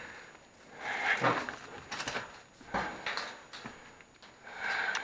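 A few short, irregular scrapes and knocks as parts of a kitchen range are pulled and worked loose by hand during dismantling.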